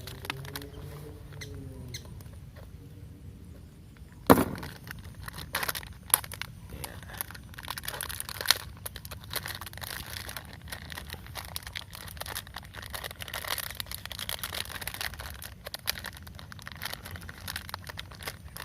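A small plastic packet of Shimano fishing tackle being opened and handled: plastic crinkling and rustling with many small irregular clicks, and one sharp snap about four seconds in.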